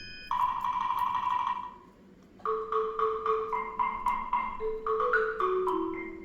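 Background music: a run of short, struck mallet-like notes over a held lower tone, with a brief lull about two seconds in.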